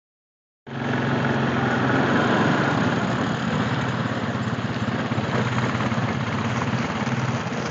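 ATV engine running steadily at low speed, a constant low engine note that cuts in about half a second in.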